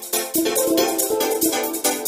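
Instrumental pop music with a fast, even beat; a sustained chord swells in about a third of a second in.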